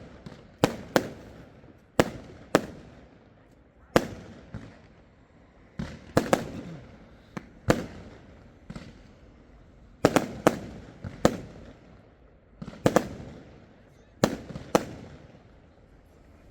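Fireworks going off: about a dozen sharp bangs at irregular intervals, often two in quick succession, each trailing off in a short echo.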